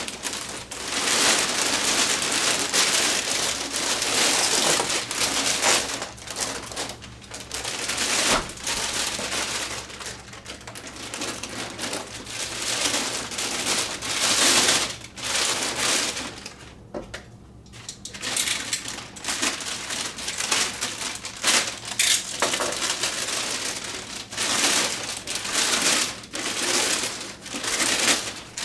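Packing material being pulled off by hand: plastic and paper rustling and crinkling in uneven bursts with small clicks, briefly pausing about two-thirds of the way in.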